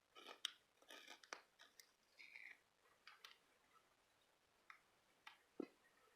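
Paper craft handling: irregular small clicks, snips and brief rustles of paper and stickers, busiest in the first couple of seconds and sparser after.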